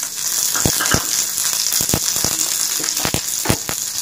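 Curry leaves and green chilli pieces sizzling in hot oil in a kadai: a steady hiss broken by sharp pops of spattering oil every second or so.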